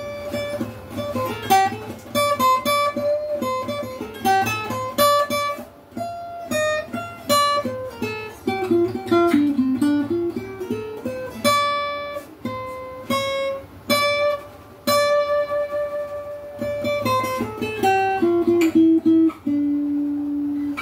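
Stock Donner cutaway acoustic guitar with its plastic nut and saddle, picked one note at a time: a melody that falls lower in the middle and climbs again, ending on a held low note.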